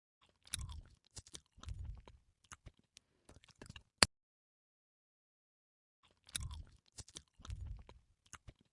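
Crunchy biting and chewing sound effect: a run of crackly crunches ending in one sharp, loud click. After a pause of about two seconds the same run of crunches repeats.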